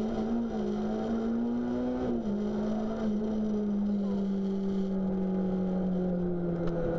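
Renault Clio RS rally car's engine heard from inside the cabin, running at a steady pitch that rises slightly twice in the first two seconds, then drops a little and holds.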